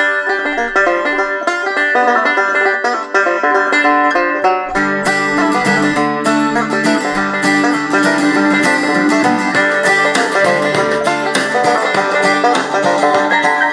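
Banjo-led bluegrass music with fast plucked notes, played back as MP3 through the XHDATA D-901 radio's speaker. Deeper notes join about five seconds in.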